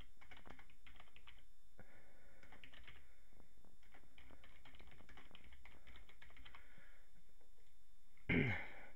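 Typing on a computer keyboard: runs of quick keystroke clicks with short pauses between words. Near the end, one brief louder sound falling in pitch stands out over the keys.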